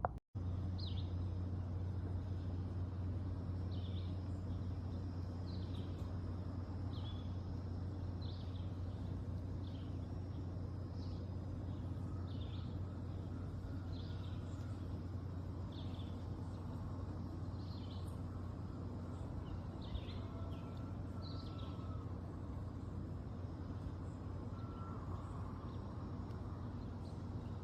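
Birds chirping, short high falling calls repeated about once a second, over a steady low hum.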